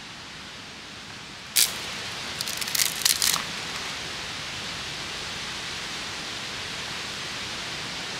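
Ferro rod struck with a steel striker over a tinder bundle: one sharp scrape about a second and a half in, then a quick run of shorter scrapes and crackles as the tinder catches, over a steady hiss.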